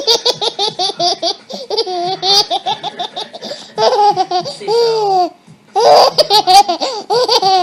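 Baby laughing in quick, high-pitched repeated bursts, with a brief pause a little past the middle before the giggling starts again.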